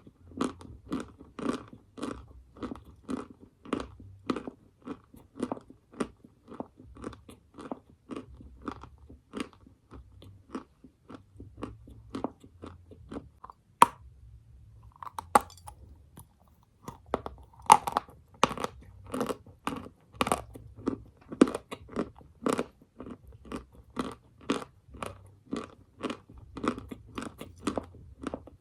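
A person chewing edible chalk-like mineral up close: a steady crunching of about two chews a second. About halfway through comes a sharp snap of a fresh bite and a short pause, then louder crunching.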